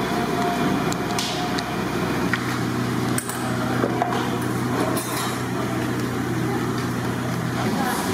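Background noise of a large cooking kitchen: a steady low hum with a few scattered clicks and knocks.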